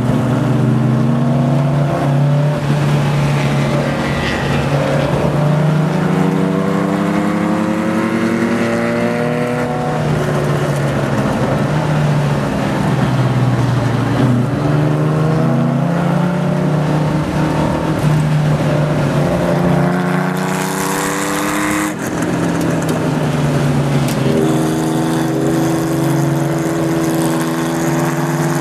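Porsche 914 race car's engine heard from inside the car at full throttle around the track, its pitch climbing again and again as it accelerates and dropping as it slows. A sharp break about three quarters of the way through marks a lift or gear change. Wind and road noise run underneath.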